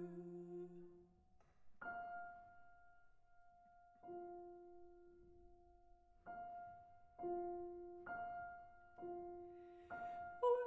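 Soft solo piano in a German art song with no voice: single notes struck one at a time and left to ring, spaced a couple of seconds apart at first and then about once a second near the end.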